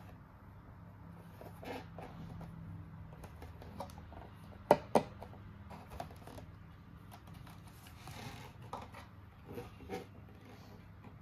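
A toy and its packaging being handled: scattered light clicks and taps over a faint low hum, with two sharp clicks close together about five seconds in.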